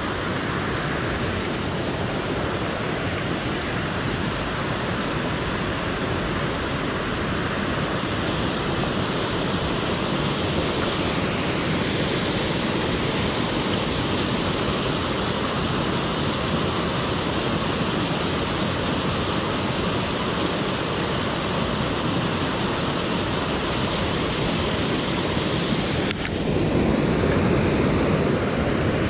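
Water spilling over a low weir into a shallow stream, a steady rushing. It grows louder and fuller near the end.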